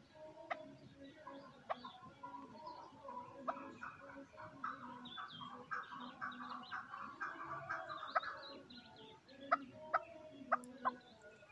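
Young chukar partridge calling softly: a long string of short, quick notes that is densest through the middle, with a few sharp ticks among them.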